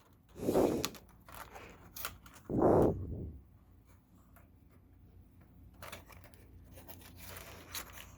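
Hard plastic packaging and parts of a wireless mouse being handled: rustling, scraping and small clicks, with two louder rubs about half a second and two and a half seconds in.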